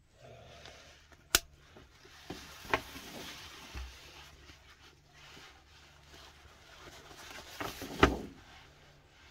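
Plastic buckles of a BabyBjörn One Air mesh baby carrier being handled: one sharp click about a second in, a couple of smaller clicks just after, then a louder clatter of knocks near the end, with mesh fabric and webbing straps rustling in between.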